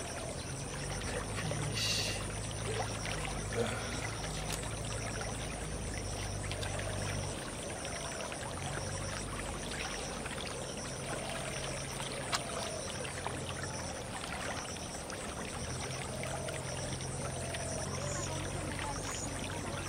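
Water of a small canal stream running and trickling. Under it a low engine hum that drops out twice for about a second.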